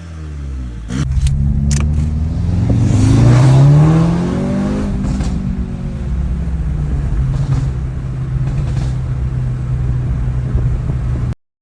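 2.0-litre turbocharged four-cylinder exhaust through a catless downpipe, stock cat-back and Stage 2 tune. A few sharp crackles come about a second in, then a rev climbs and falls over a few seconds and the engine settles back to a steady idle. It cuts off abruptly near the end.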